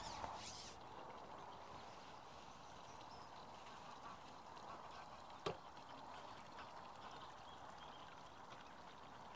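Near silence: faint outdoor ambience, with one sharp click about five and a half seconds in.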